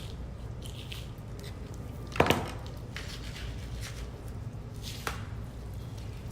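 Soft, wet handling of a raw rack of pork spare ribs as a knife is worked under the membrane on the bone side to lift it. A sharp double knock a little over two seconds in, and a fainter click about five seconds in.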